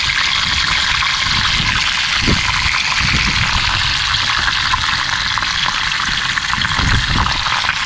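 Fish frying in hot oil: a steady, dense sizzle with fine crackling.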